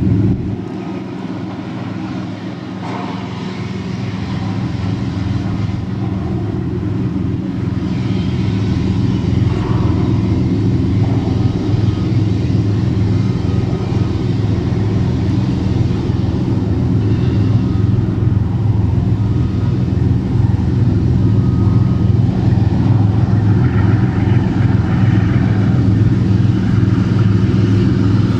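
Customs patrol boat's engines running at speed: a steady low drone with a rushing hiss over it, growing louder over the first several seconds and then holding steady.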